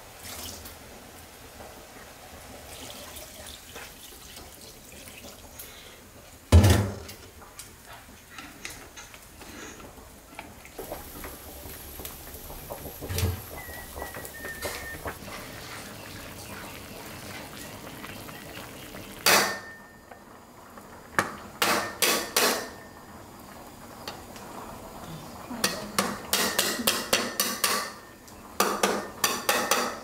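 Dishes, pots and utensils clattering and clinking. There is a heavy knock about six seconds in, then bursts of rapid clinks in the second half.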